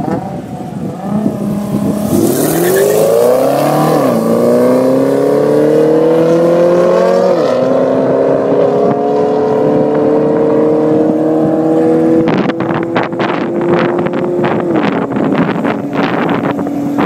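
The 650 hp Camaro's V8 held at revs on the line, then launched at full throttle, its pitch climbing through the gears with two upshifts about 4 and 7 seconds in, then pulling steadily higher. From about 12 seconds in, wind buffets the microphone over a steady engine note that drops about 15 seconds in.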